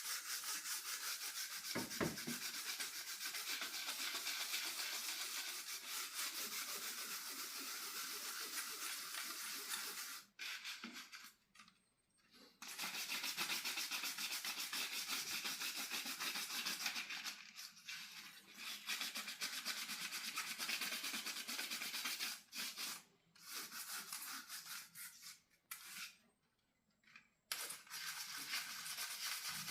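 Rapid scrubbing on a greasy metal range-hood grease filter, in long runs broken by a few short pauses.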